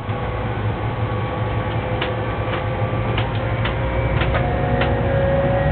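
Siemens Taurus electric locomotive running along the track, heard from inside its cab: a steady low rumble with a few steady whining tones above it and scattered clicks.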